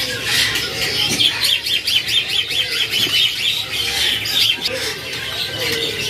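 Caged young cockatiels and lovebirds chirping and squawking, with a quick run of repeated high chirps, about six a second, through the middle.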